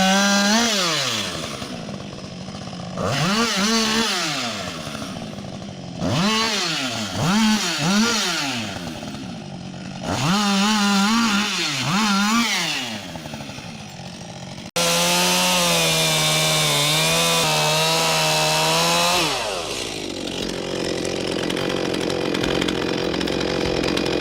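Chainsaw engine revved up and let down again in repeated bursts, about four over the first half, as the saw works through timber. After an abrupt change it runs at steady high revs for a few seconds, then falls off to a rougher, noisier sound.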